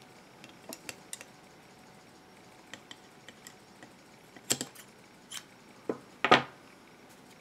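Small metal scissors snipping excess cotton wick over a rebuildable dripping atomizer's deck: scattered light clicks and ticks of the blades, with two louder clicks a little past halfway.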